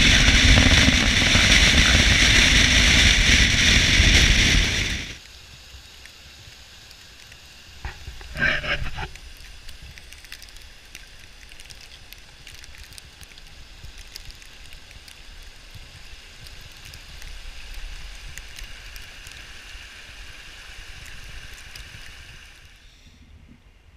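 A vehicle driving on a road, with steady road and wind noise heard from inside, cutting off suddenly about five seconds in. After that, a faint steady rush of a mountain stream with light ticks and knocks, and one brief louder sound just after eight seconds.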